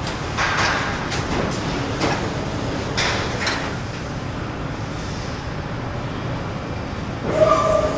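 Metal factory ambience: a steady machinery rumble with several metal clanks and knocks, and a short pitched metal squeal near the end.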